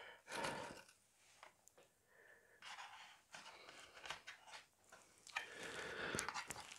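Faint rubbing, scraping and small clicks of small plastic model parts being handled and pushed into place.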